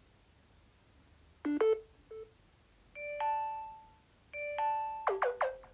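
Samsung Galaxy A20e system sound tones: a few short electronic blips and two fading two-note chimes, then three quick sliding blips near the end.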